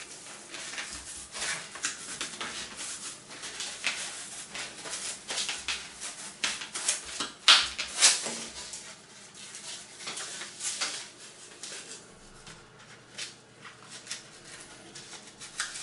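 Scratchy, rustling handling noise from hands working a foam insulation board and wrapping tape around its edge, with a few sharper crackles about halfway through, then quieter fiddling.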